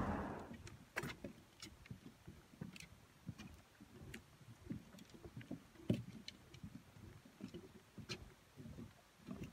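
Footsteps on a wooden boardwalk: soft, uneven thumps with occasional sharp clicks.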